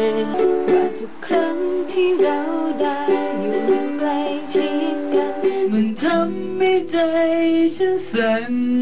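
Amateur acoustic covers of a Thai pop song cut together: a woman singing while strumming a ukulele, with acoustic guitar and voice in the neighbouring snippets.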